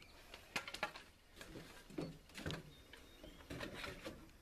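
A few separate sharp knocks and clicks from handling a wooden cover board and a cordless drill against a wooden deck rail, with no long run of the drill.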